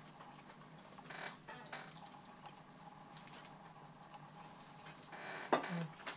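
Faint wet eating sounds: chewing, lip-smacking and finger-licking on chicken drumsticks eaten by hand, in scattered soft clicks. A sharper, louder smack or click comes about five and a half seconds in.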